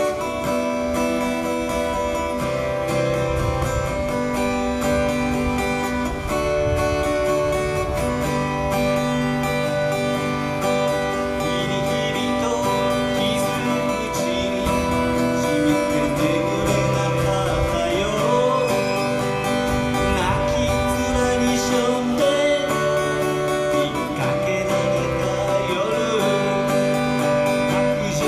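Live acoustic guitar playing a song, with a singer's voice coming in about halfway through.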